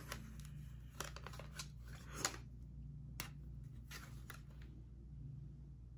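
Small handheld brow-shaping razors being picked up and handled: a few faint, scattered clicks and scrapes over a low steady hum.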